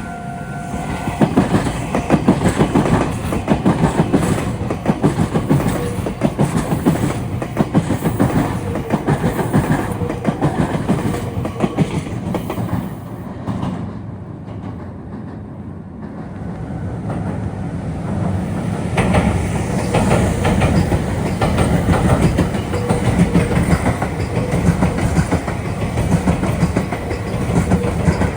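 Meitetsu electric trains passing over the junction's points and rail joints, with a dense, rapid clickety-clack of wheels. The noise eases off around the middle and builds again. A steady tone cuts off about a second in.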